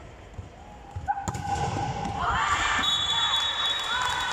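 A volleyball struck sharply about a second in, followed by players' high-pitched shouts and calls ringing in a large gym hall.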